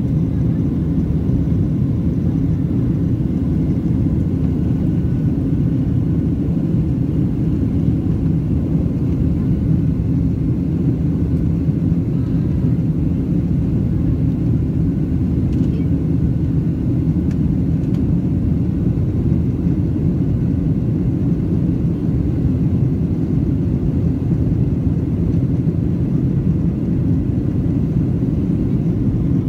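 Steady low rumble of a Boeing 737's jet engines and rushing air, heard inside the passenger cabin as the airliner climbs out after takeoff.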